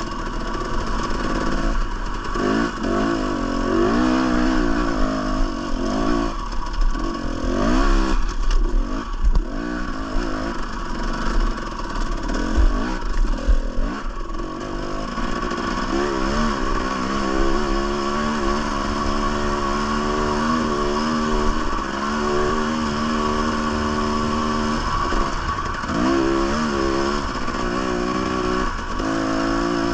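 Two-stroke Husqvarna TE 300 dirt bike engine being ridden: the revs rise and fall over and over through the first half, then hold steadier with a few short bursts of throttle near the end.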